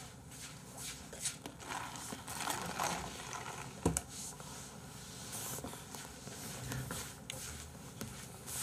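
Small handling noises: scattered clicks, scrapes and rustles, with one sharper knock a little before the four-second mark.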